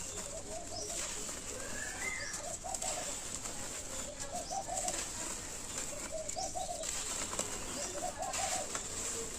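Dry roasted dirt crumbling by hand with fine, gritty crackles. Behind it a dove coos in short groups of three or four notes, repeating about every two seconds, and a small bird chirps once about two seconds in.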